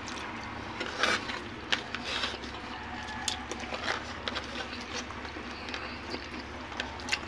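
Eating by hand: chewing and lip smacks, with fingers scooping rice and chicken off a plate. Irregular short wet clicks and smacks, busiest in the first few seconds.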